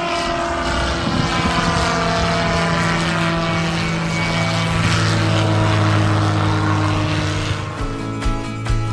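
Light propeller aircraft engine running loudly, its pitch sliding down over the first few seconds and then holding steady. Music comes in near the end.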